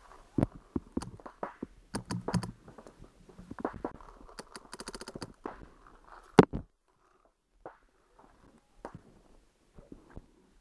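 Paintball markers firing: scattered single shots, then a rapid string of evenly spaced shots about four and a half seconds in, and one loud sharp crack about six and a half seconds in. After that only a few faint pops and clicks.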